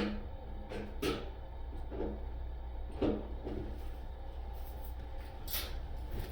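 Scattered light knocks and clunks of hands and tools working at a broken-off water valve, about one a second at first, with a brief scrape near the end, over a low steady hum.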